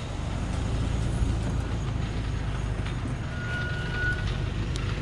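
Diesel engine of a Thaco Foland truck heavily loaded with acacia logs, running steadily as it starts down a steep dirt slope. A brief high tone sounds about three seconds in.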